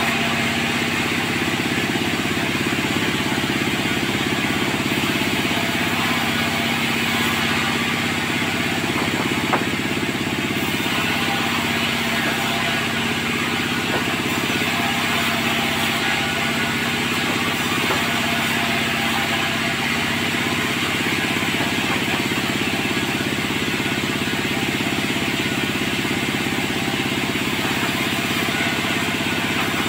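Sawmill machinery running steadily, an even engine-like drone with a constant hum, and one brief click about nine seconds in.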